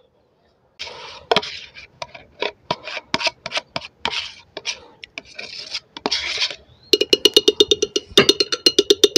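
A spoon scraping thick cream out of its tub into a glass blender jar, starting about a second in, then a quick run of ringing taps, about eight a second, as the spoon is knocked against the jar's rim to shake the cream off.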